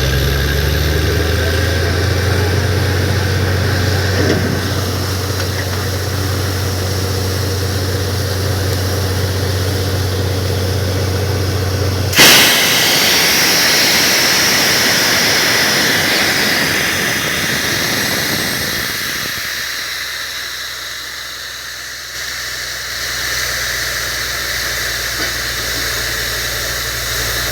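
Borewell drilling rig's engine running steadily, then about halfway through a sudden loud hissing rush of air and water from the bore takes over, fading down before a lower steady hum returns near the end.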